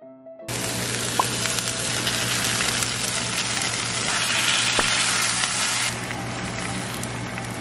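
Kung pao chicken sizzling in a frying pan as the sauce is poured in and stirred through; the sizzle drops a little about six seconds in.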